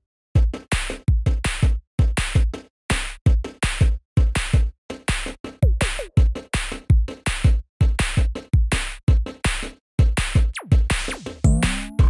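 Electronic music with a punchy drum-machine beat and deep bass hits, several a second, coming in just after the start.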